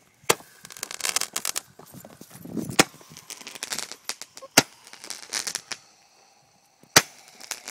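Consumer fireworks going off: four sharp bangs at irregular intervals, with bursts of crackling hiss between them.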